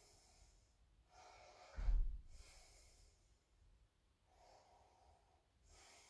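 A man breathing in and out, three or four breaths while recovering after exercise. A low thump on the microphone comes about two seconds in and is the loudest sound.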